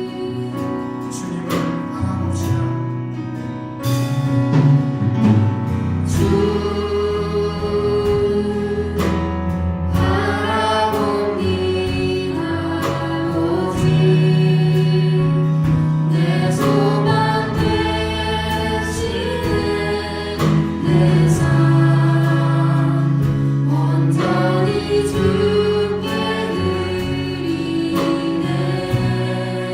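Church praise band playing a worship song live, with several voices singing over the band.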